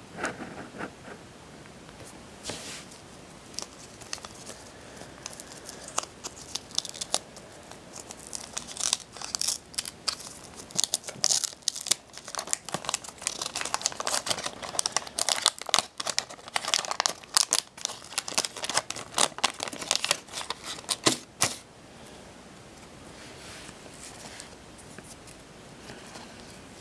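A Garbage Pail Kids wax-paper trading card pack being torn open and crinkled by hand: a long run of sharp crackling tears and crinkles, sparse at first, thickest through the middle, and fading to light rustling near the end as the cards come out.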